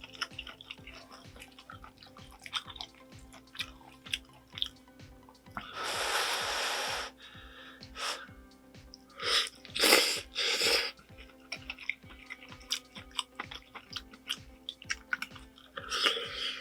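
Close-miked eating of spicy squid jjamppong ramen: wet chewing and mouth clicks, a long noodle slurp about six seconds in, three short slurps around ten seconds, and another near the end.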